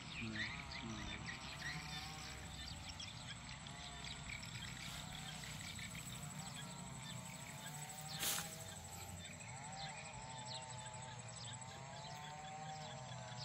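Rice-field ambience: a steady high insect whine with scattered short chirps, and repeated wavering animal calls. A brief rustling burst comes about eight seconds in.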